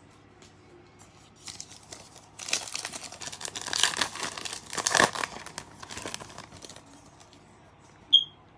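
A trading card pack's wrapper crinkling as it is torn open, loudest in the middle. A short, high-pitched squeak near the end.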